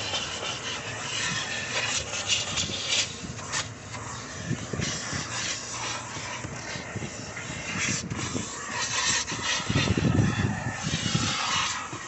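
Self-service car-wash vacuum hose sucking with a steady hiss, its wide nozzle rubbing and scraping over the car's seats and carpet, with some heavier bumps near the end.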